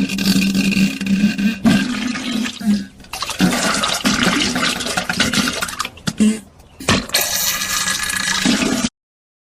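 Diarrhea sound effect: wet, spluttering fart-like bursts with splashing water, coming in uneven spurts with a low buzz. It cuts off suddenly near the end.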